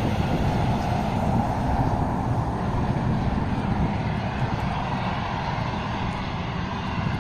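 A steady, unidentified scraping noise over a constant low rumble, strongest in the first few seconds.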